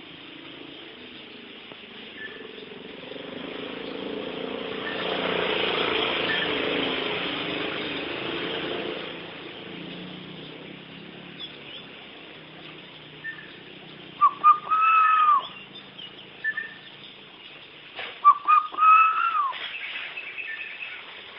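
Outdoor background with a rushing noise that swells and fades over the first half. It is followed by two whistled calls several seconds apart, each a few short notes and then a longer note that rises and falls. Faint short chirps come in between.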